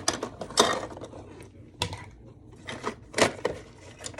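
Small objects being handled: an irregular series of clicks, taps and rustles, with two louder knocks, one about half a second in and one about three seconds in.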